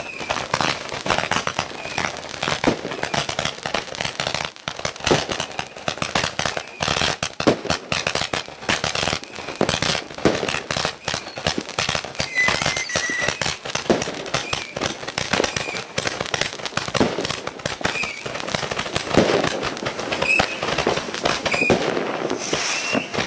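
New Year's Eve fireworks (rockets and firecrackers) going off close by: a dense, continuous crackle of bangs and pops, with brief high-pitched notes here and there.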